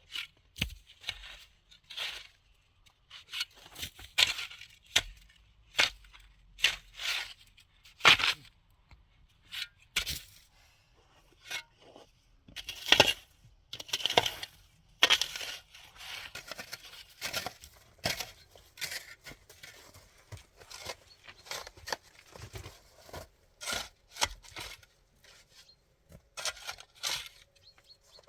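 An irregular series of short, rough tearing or scraping strokes, coming every half second to two seconds, as of material being torn, cut or worked by hand.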